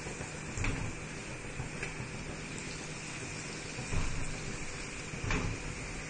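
Wheat-flour puri deep-frying in hot oil: a steady sizzle, with about three light knocks of a metal spatula against the pan.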